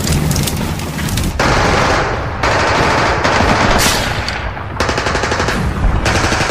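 Rapid machine-gun fire in several bursts that start and stop abruptly.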